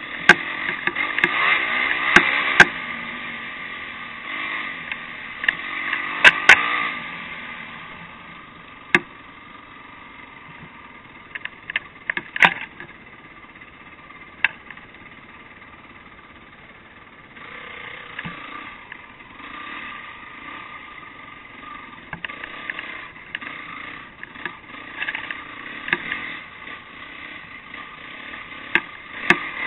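Off-road motorcycle engine running under a rider on a rough trail, heard from a camera mounted on the bike, louder in the first several seconds and quieter through the middle. Sharp knocks and clatter come as the bike jolts over bumps.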